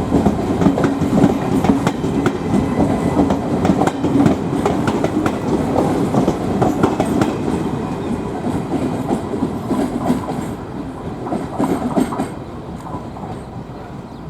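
Express train's passenger coaches rolling past, wheels clattering over rail joints, dying away over the last few seconds with a sudden drop about twelve seconds in.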